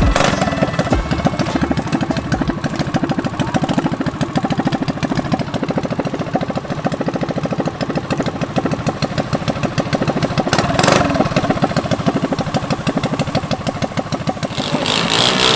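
Small single-cylinder pull-start minibike engine running steadily at a low idle, its firing pulses coming fast and even. It gets louder for a moment about ten and a half seconds in, and again near the end.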